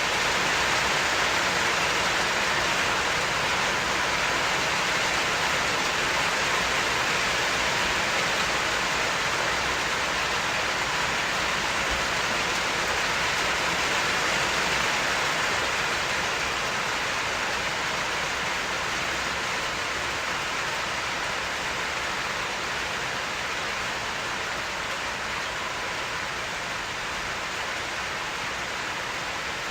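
Steady rain falling, an even hiss that eases slightly in level through the second half.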